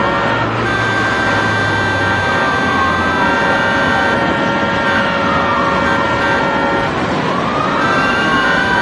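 Dense city traffic noise with a siren wailing in slow glides: it falls twice and rises again near the end, over held horn-like tones and a constant traffic rush.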